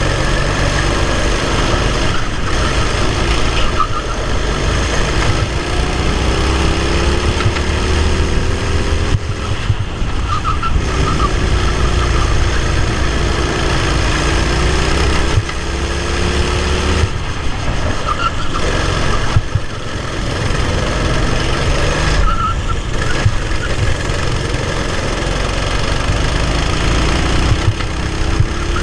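Racing kart engine at full race speed heard from on board, its pitch rising in long glides down the straights and dropping back several times as the kart slows for corners, over heavy wind noise on the microphone.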